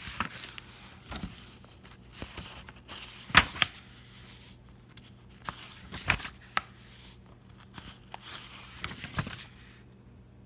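Paper pages of a book being turned and handled close by: irregular papery rustles with a few sharp flicks, the loudest about three and a half and six seconds in.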